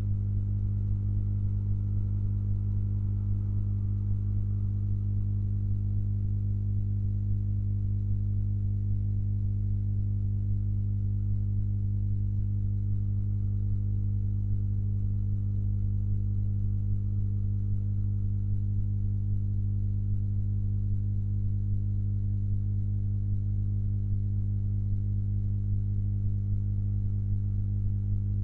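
Steady low electrical hum with a strong, even buzzing tone, unchanging throughout.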